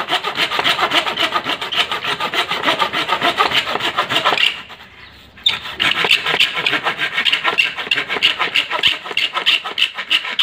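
A small green-handled hand saw cutting into a wooden branch with fast back-and-forth rasping strokes, stopping for about a second near the middle before sawing resumes.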